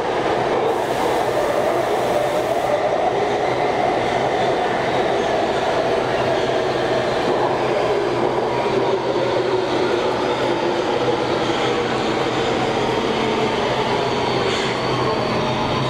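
Interior running noise of an Alstom Metropolis driverless metro train in a tunnel: a steady rumble with a wavering whine. Near the end a thin whine falls slowly in pitch as the train slows toward the station.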